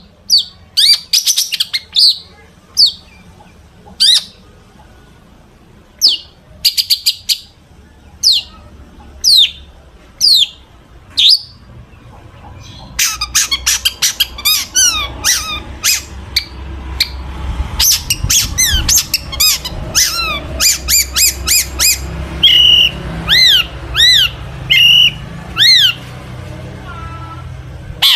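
Long-tailed shrike (cendet) singing a song filled with mimicked calls: first sharp, falling whistled notes about a second apart, then from about halfway a fast run of harsh chattering notes and arched whistles.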